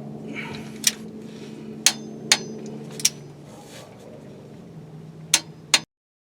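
Tekton 1/2-inch drive click-type torque wrench giving a series of six sharp metallic clicks at uneven gaps over a steady low hum. Each click is the wrench breaking over at its set torque, the sign that the nut has reached the right tightness.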